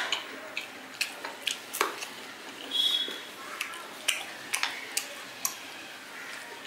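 A person eating: chewing with a run of sharp, irregular mouth clicks, and a brief high squeak about three seconds in.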